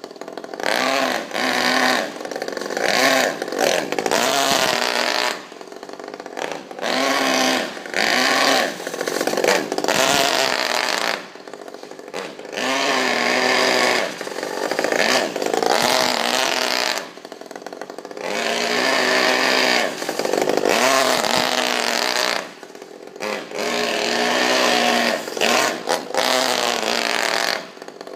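Saito FA-50 single-cylinder four-stroke glow engine in a Traxxas Nitro 4-Tec RC car, revving up and easing off again and again, growing louder and quieter by turns as the car runs about.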